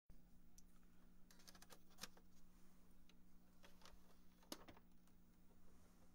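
Near silence: a low steady hum with scattered faint, irregular clicks, a small cluster of them about a second and a half in and another about four and a half seconds in.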